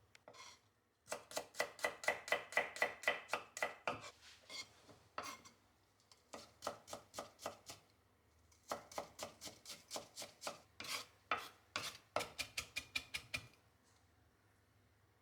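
Kitchen knife chopping food on a cutting board in quick, even runs of about five or six strokes a second, with short pauses between the runs.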